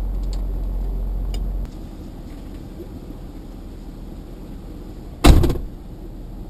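Stuck Jeep Wrangler's engine running steadily, then switched off about a second and a half in. About five seconds in, a door slams shut once, loudly.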